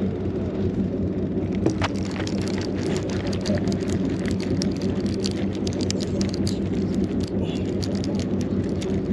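A boat engine running steadily with a low, even hum. From about a second and a half in, a quick patter of clicks sounds over it as a conventional deep-sea reel is cranked.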